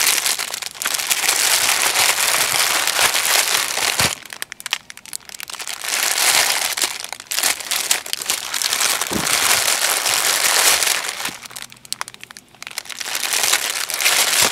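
Clear plastic poly bags holding paracord bracelets crinkling as they are handled and shuffled by hand, in long stretches broken by two short lulls.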